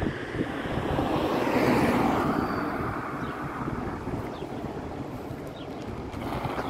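A car passing close by, its tyre and engine noise swelling to a peak about two seconds in and fading as it drives off. Near the end the diesel engine of an approaching Volvo B8RLEA articulated city bus grows louder.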